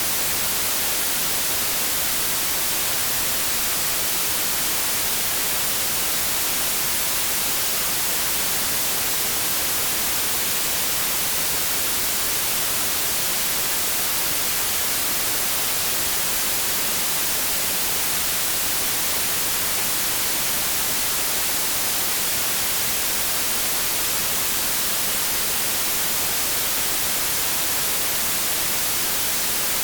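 Synthetic white noise: a steady, even hiss across the whole range, brightest in the highs, with no change in level.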